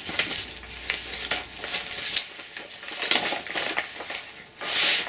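Paper and plastic packaging rustling and crinkling in irregular bursts as it is handled, with a longer, louder rustle near the end.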